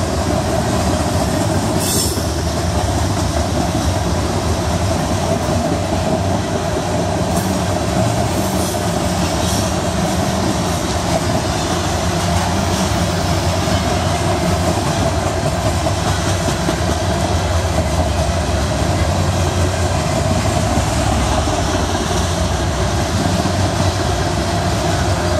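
Loaded coal hopper cars of a long, heavy CSX freight train rolling past at close range: a steady loud rumble and clatter of steel wheels on the rails, with a steady ringing note over it.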